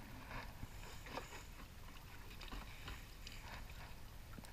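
Faint low rumble of wind and water around a small boat on open sea, with a few soft clicks or taps.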